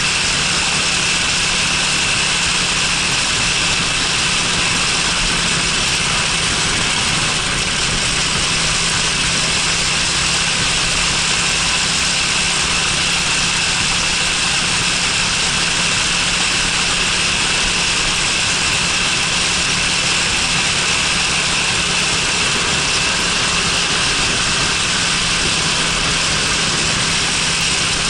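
Honda Freeway 250 cc scooter running at a steady speed, heard from on board, with a steady rushing noise over the engine's even hum.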